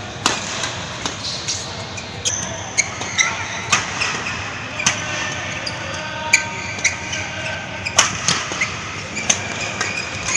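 Badminton rally: a quick, irregular series of sharp racket-on-shuttlecock hits traded back and forth, with short high squeaks of court shoes on the hall floor over a steady hall background.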